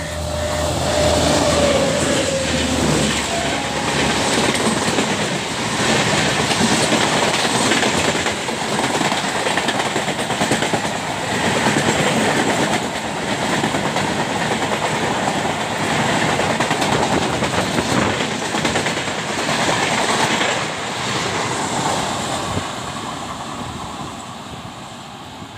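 WAP7 electric locomotive passing at speed with a train of LHB coaches: a steady tone drops in pitch as the locomotive goes by, then the continuous clickety-clack and rumble of the coaches' wheels over the track, fading near the end as the train draws away.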